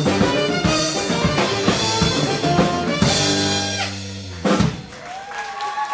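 Live band of saxophone, electric bass, drum kit and piano playing the closing bars of a tune with busy drumming, holding a final chord about three seconds in and ending on a last drum hit. Applause and a whistle from the audience begin near the end.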